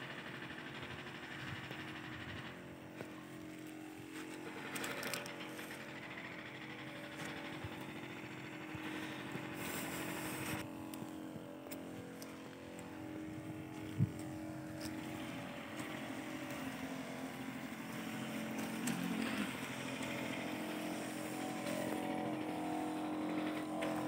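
Battery-powered backpack sprayer's pump motor running steadily, with a steady hum and the hiss of pesticide spray from the lance. A single brief knock about halfway through.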